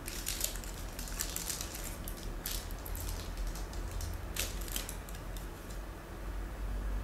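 Crinkling and rustling of a chocolate bar's paper wrapper being opened by hand: a dense run of crackles, then a few more sharp ones about two and a half and four and a half seconds in.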